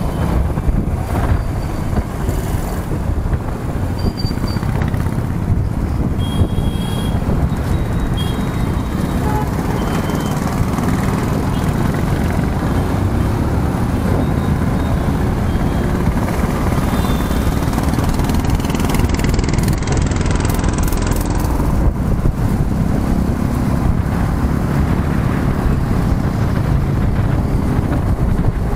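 Motorcycle on the move: a steady rush of wind over the microphone mixed with engine and road noise.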